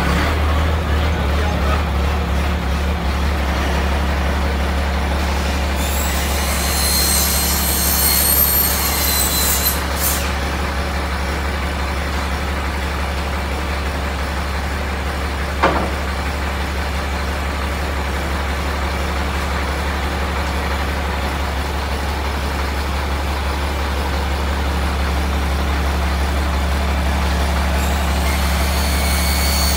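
The crane truck's diesel engine runs steadily at a low hum while it powers the boom crane. A high-pitched squeal rises over it for a few seconds about six seconds in and again near the end, and there is one sharp knock about halfway through.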